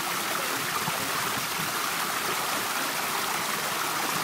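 Fountain water running and splashing steadily.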